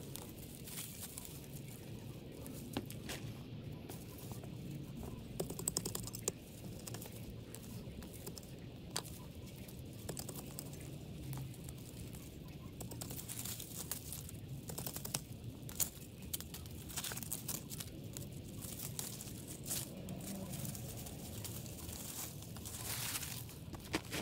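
Irregular rustling and crackling of dry plant debris being cleared from a flower bed, with many sharp clicks and a longer scraping rush near the end.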